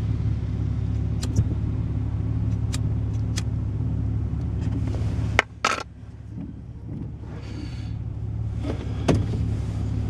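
Pickup truck driving, heard from inside the cab: a steady engine and road drone with light rattles and clicks. About five seconds in there is a sharp click, the drone drops off suddenly, and it then builds back up over the next few seconds.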